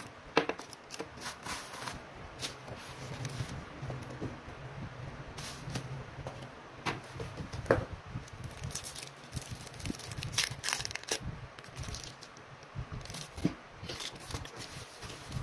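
Hands rummaging through shredded-paper packing in a cardboard box and handling small plastic-wrapped items. Irregular rustling and crinkling with scattered sharp taps and clicks.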